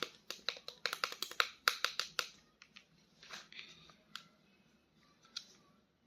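Hands handling a plastic toy figure: a quick run of sharp clicks and taps for about two seconds, then softer rustling and a few single clicks.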